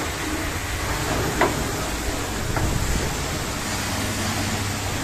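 Long-handled brush scrubbing the wet, soapy side panels of a truck, over a steady hiss and low machine hum, with a couple of brief knocks about a second and a half and two and a half seconds in.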